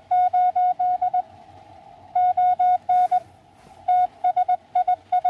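Morse code (CW) from a Xiegu X6100 ham radio transceiver: a single steady beep keyed on and off in dots and dashes, in three bursts of sending with short pauses between them.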